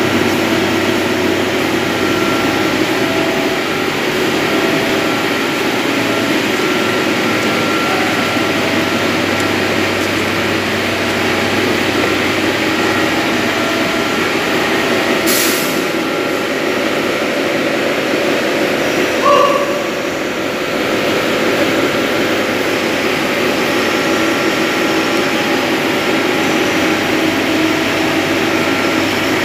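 Block-ice plant machinery running: a loud, steady mechanical drone with a few steady hum tones, a brief hiss about fifteen seconds in and a short louder sound near nineteen seconds.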